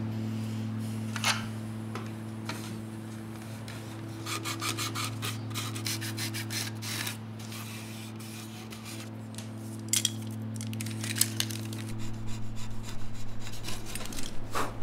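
Plastic model parts being rubbed and scraped by hand with a small tool, in short irregular strokes that come in bunches, about four seconds in and again from about ten seconds on, over a low steady hum.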